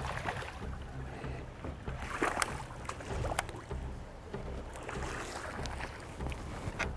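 Choppy water slapping against a bass boat's hull, with wind on the microphone and a few sharp knocks about two and three seconds in.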